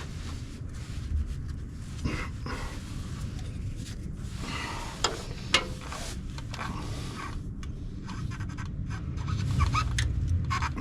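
A man breathing hard while working, with scraping and rubbing of tools against metal and two sharp metal clicks about five seconds in.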